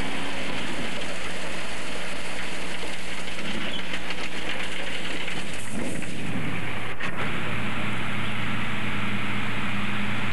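Dump truck's engine running with its bed tipped up as it unloads road base: a steady rushing hiss over a low engine hum. There is a brief click about seven seconds in.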